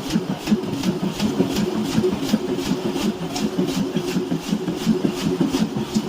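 Power hammer forging a knife blank, striking in an even rhythm of about three to four blows a second over the steady hum of its running motor.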